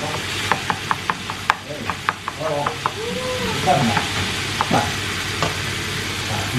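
Minced meat sizzling in a frying pan while a spatula stirs it, with a quick run of sharp taps and scrapes of the spatula against the pan in the first half.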